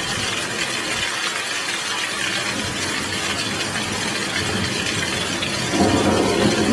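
Heavy rain falling steadily as an even hiss; near the end a low rumble of thunder comes in and the sound grows louder.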